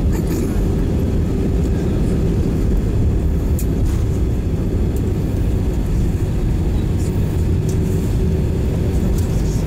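Steady, loud rumble heard inside a jet airliner's cabin as it rolls along the runway just after landing, with engine and wheel noise and a constant low hum.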